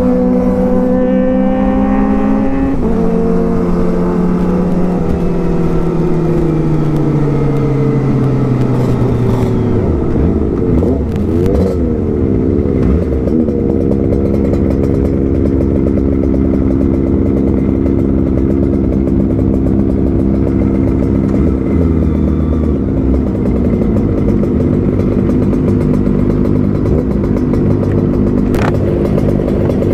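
Kawasaki Ninja ZX-25R inline-four engine heard from the rider's seat: it climbs briefly, then winds down steadily over several seconds as the bike slows, and settles to a steady idle from about ten seconds in. Other motorcycle engines idle and rev around it.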